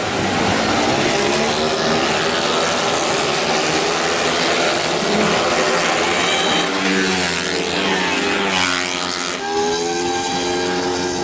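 A pack of 131 cc automatic scooters racing at high revs, making a dense, loud buzz of many small engines. Engine pitches rise and fall as bikes pass, most clearly about two-thirds of the way through.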